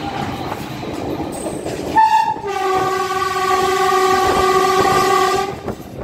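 Train horn sounding a brief higher toot about two seconds in, then one long steady blast of about three seconds that cuts off sharply, over the rumble of the carriage running on the rails.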